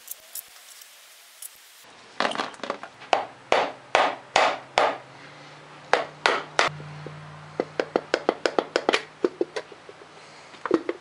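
A hammer knocking on the recoil starter (pull) cover of a Polaris 400 engine to break it free of the crankcase. About two seconds in comes a run of sharp knocks, about three a second. After a short pause there is a brisk string of lighter, quicker taps, then a last cluster near the end.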